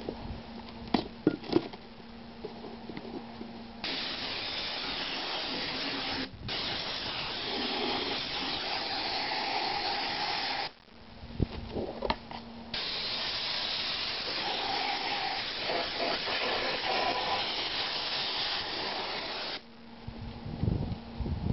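Compressed-air siphon spray gun spraying liquid from a jar in three long hissing bursts with short breaks between them, after a few knocks and clicks in the first couple of seconds.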